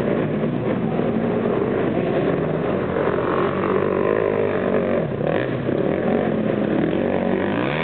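Dirt bike engine revving under load on a steep climb, its pitch dropping and rising again several times.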